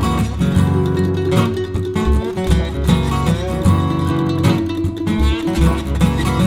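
Background music: acoustic guitar strumming and picking at a steady pace.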